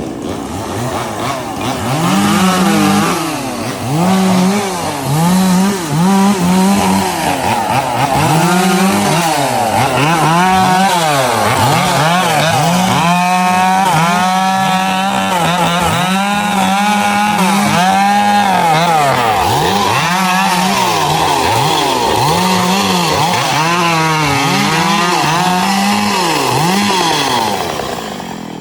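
Two-stroke chainsaw revved up and down over and over, its pitch climbing and dropping about once a second. In the middle it holds at high revs for several seconds at a time.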